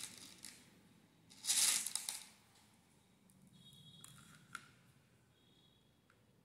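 Beads and thin wire being handled while beads are threaded on: a short rustle about a second and a half in, then faint small clicks.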